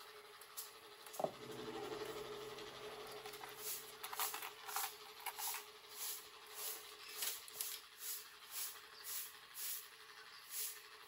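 Quiet bench handling of small metal parts: a sharp metallic click about a second in, followed by a faint lingering hum. Then come brief clinks and scrapes from rummaging through a drawer of small metal pieces, and after that soft hissing bursts repeating about twice a second.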